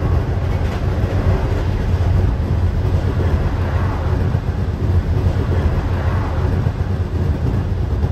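Steady running noise of a loco-hauled passenger train at speed, heard from inside the coach: a low rumble of the wheels on the track with a rushing hiss over it.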